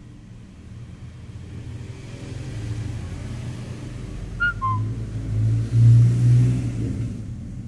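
Low engine hum of a motor vehicle passing by, swelling to its loudest about six seconds in and then fading. A brief two-note whistle-like chirp comes midway.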